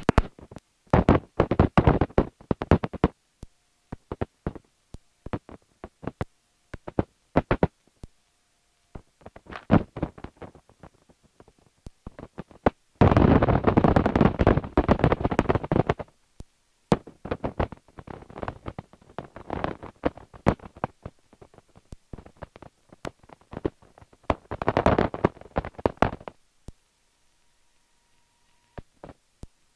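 Boeing PT-17 Stearman biplane's radial engine idling while the plane taxis, heard through the headset intercom as irregular pops and crackly bursts of engine and wind noise. The audio cuts out to dead silence between bursts, as the intercom gates on and off.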